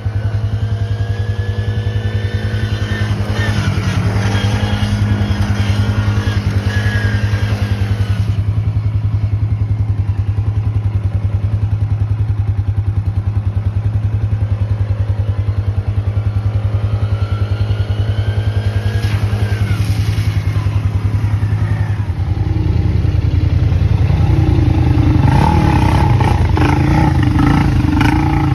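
A nearby ATV engine idling steadily, while a small youth ATV's engine revs up and falls back twice as it rides along the trail. About three quarters of the way through, a louder ATV engine takes over.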